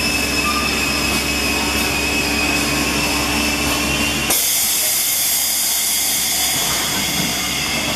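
Automatic high-frequency PVC welding machine running with a steady whine, then a loud, sustained hiss that starts suddenly about halfway through.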